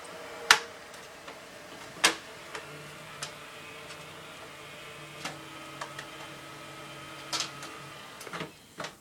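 Xbox 360 console running with its add-on intercooler fan, a steady whirring hum, which is really loud; the owner later finds the intercooler not fitted right. Several sharp clicks cut through it, the loudest about half a second and two seconds in.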